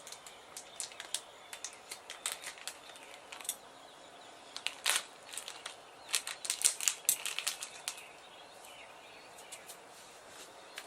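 Scattered light clicks and taps of small parts and tools being handled during a sewing machine gear repair. The clicks are busiest in the middle and stop a few seconds before the end.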